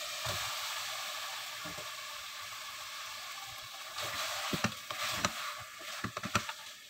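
Mutton and taro root sizzling steadily in hot oil in a pressure cooker pot. From about four seconds in, a wooden spoon stirs the pot, with a string of sharp knocks and scrapes against the metal.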